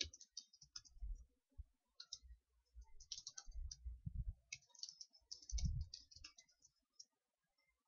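Computer keyboard typing, quiet, in short bursts of keystrokes with pauses between them.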